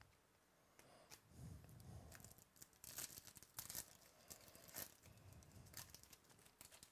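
A foil trading-card pack wrapper being torn open and crinkled in the hands: a run of sharp crackles, thickest about three to four seconds in.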